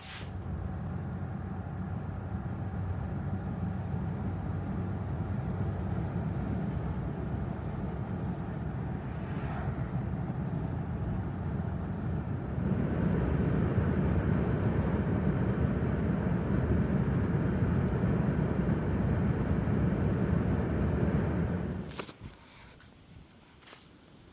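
A vehicle driving, with a steady low road and engine noise that gets louder about halfway through and cuts off abruptly near the end.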